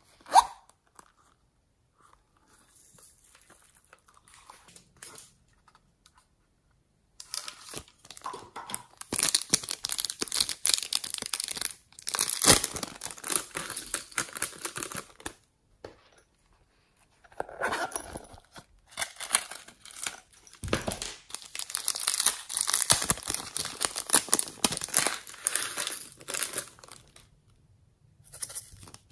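A sharp click, then two long stretches of crinkling, crackling handling noise as small toy containers of slime add-ins are opened and tipped out over a tray of slime.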